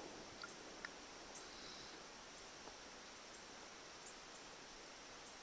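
Near silence with faint small splashes and drips of water as a rubber-and-metal outboard exhaust seal is washed by hand in a tub of water.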